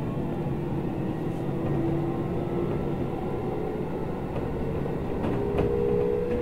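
Interior running sound of a Keisei 3000 series electric train: the VVVF inverter and traction motor whine, shifting slowly in pitch, over the rumble of wheels on rail, with a few faint clicks from the track near the end.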